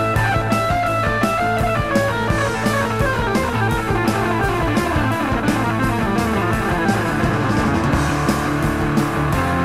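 Rock music with electric guitar and drums, played as a soundtrack.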